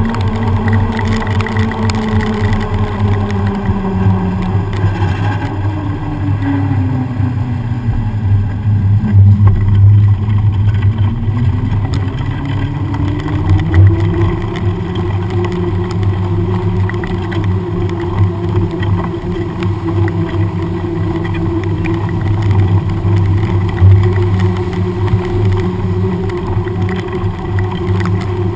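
Riding noise of a mountain bike on a wet road among traffic: wind rumble on the microphone under a humming tone that drops in pitch a few seconds in, climbs back up around the middle, then holds steady.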